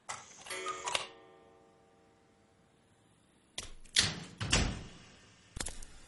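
A few sharp clicks with a brief metallic ringing after them, then a cluster of heavier knocks and thuds about four seconds in, and more clicks near the end.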